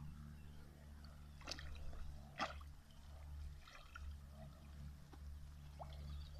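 Small splashes and trickling water as an Alaskan malamute puppy swims and wades through shallow pond water, with a few sharper splashes in the first half. A steady low wind rumble on the microphone runs underneath.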